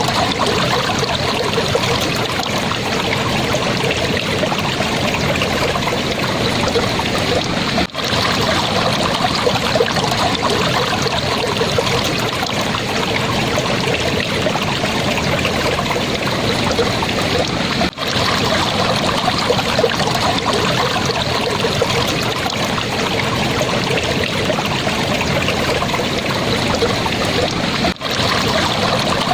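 Shallow water babbling and trickling steadily over stones in a calm, clear stream, with a brief dip in level about every ten seconds.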